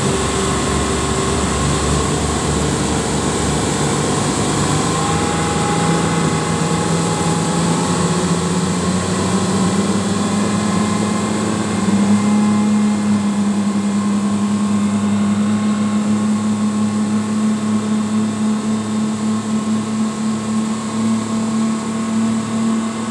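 Twin Yamaha 250 hp outboard motors running at speed on a speedboat. Their engine note rises a little over the first dozen seconds, then holds steady.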